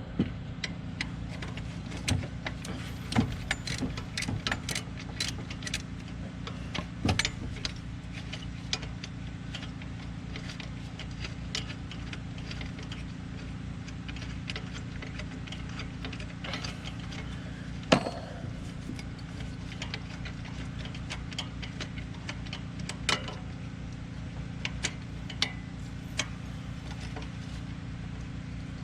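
Hand tools clicking and clinking on metal in irregular bursts as bolts are worked loose on an engine bracket of a 1985 Chevy S-10, with one sharper knock about two-thirds of the way through. A steady low hum runs underneath.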